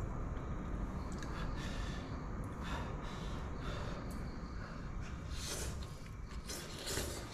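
A man eating stir-fried hand-torn cabbage from a pan: chewing and breathing hard through the nose, with a few short clicks of a spoon against the pan.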